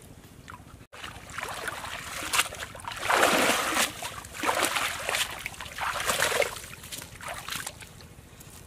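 Pond water splashing and sloshing as a cast net is hauled in by hand through the shallows, in several surges, the loudest about three seconds in.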